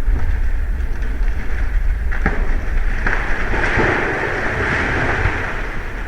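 Steady low rumble of wind buffeting the microphone, with a rushing noise that swells in the second half and a couple of faint clicks about two seconds in.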